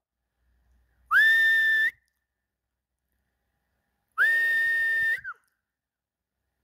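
Shepherd whistling to drive the flock on: two long whistles about three seconds apart, each sliding up briefly and then holding one steady high tone.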